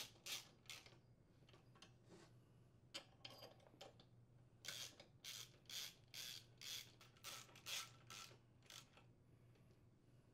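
Faint clicks and scrapes of a hand ratchet and steel screws being run into the aluminium cylinder head of a Briggs & Stratton small engine. There are a few short strokes at first, then a regular run of about two clicks a second in the second half.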